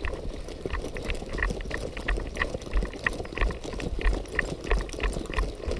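Footsteps of a person running on concrete in a steady rhythm, heard close up. Each stride is a dull thud with a light clink of carried gear.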